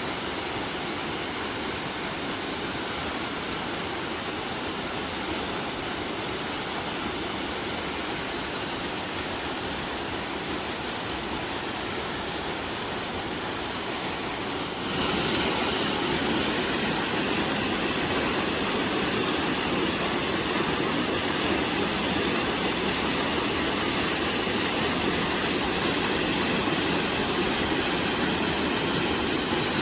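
Mountain waterfall and stream water rushing steadily. The rush gets noticeably louder and brighter about halfway through.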